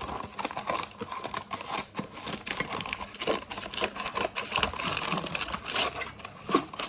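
Baking paper crinkling and rustling in quick irregular crackles as it is handled and trimmed with scissors to fit a cake pan.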